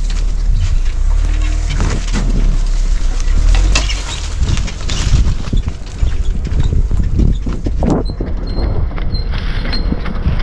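Renault Duster towing a covered box trailer over a rough, rutted forest dirt track: a steady low rumble with frequent knocks and rattles as the car and trailer bump along. The sound turns duller about eight seconds in.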